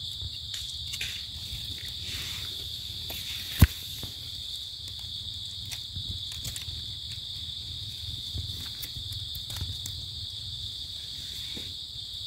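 A steady, high drone of insects, crickets or similar, with faint rustles and crackles from movement in the undergrowth. A single sharp click about three and a half seconds in.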